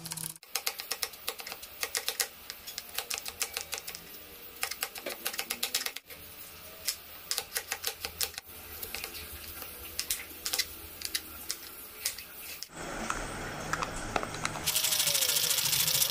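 A kitchen knife chopping onion and carrot on a plastic cutting board in rapid runs of sharp taps. Near the end this gives way to a pull-cord vegetable chopper being pulled, its blades whirring through the pieces.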